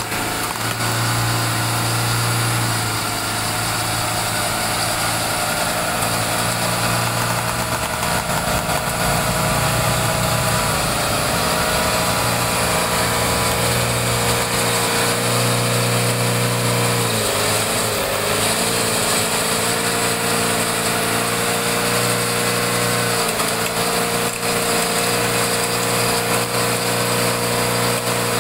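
Electric winch on the front bumper of an off-road 4x4 whining steadily as it reels in its cable and drags the vehicle through mud, over the vehicle's engine running. The whine sags in pitch briefly twice, about a third of the way and two-thirds of the way through, as the load on the winch rises.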